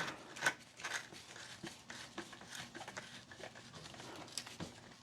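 Faint, scattered clicks and light knocks from the parts of a Finnish M39 Mosin-Nagant rifle being handled during reassembly.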